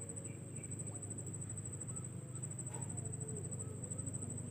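An insect trilling in one steady, high-pitched, finely pulsed tone, over a low steady rumble.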